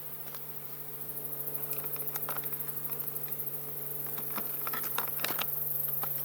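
Honey bees humming steadily around an open hive, with light clicks and knocks of wooden hive parts being handled and set back together, the knocking busier in the second half.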